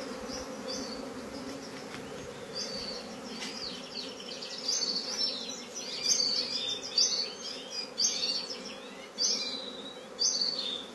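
A large swarm of honey bees buzzing steadily in flight as it moves into a bait box. High, short bird chirps come repeatedly over the buzz, more often from about halfway.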